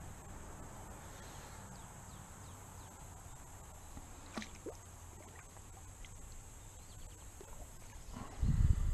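Quiet creekside ambience. A small crappie is dropped back into the creek with a light splash about four seconds in, and near the end a loud low rumbling starts on the microphone.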